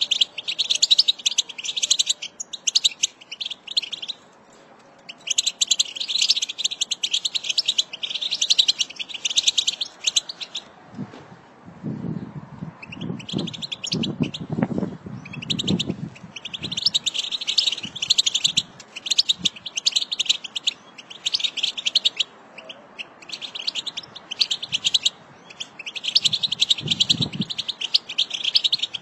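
American goldfinch singing: long, rapid twittering phrases of several seconds each, separated by short pauses. A few low, muffled sounds come through in the middle and again near the end.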